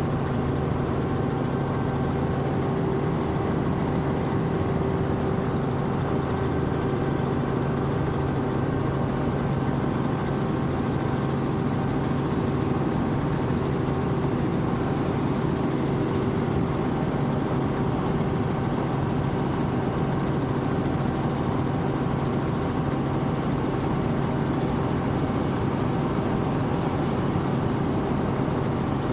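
Helicopter's turbine engine and rotors running steadily, heard from inside the cabin as a constant droning hum with a few steady tones over rushing noise.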